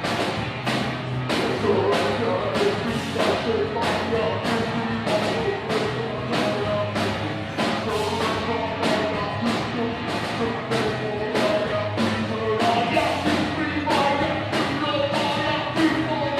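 Rock band playing live, with a steady drum beat about twice a second and singing over it.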